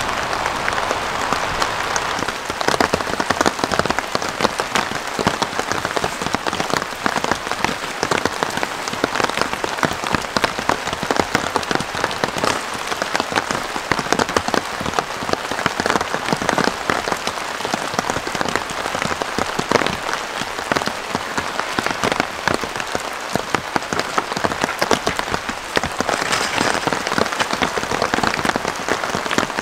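Steady rain falling, a dense patter of drops hitting a surface.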